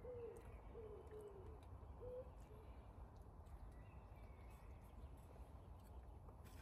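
A bird's low hooting calls, several short arched notes in quick succession during the first two seconds, then fading out, leaving faint background with a few small ticks.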